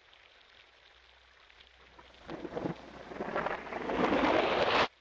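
Cartoon thunderstorm played backwards: rain hiss swells over about three seconds into a loud thunder rumble that cuts off suddenly near the end.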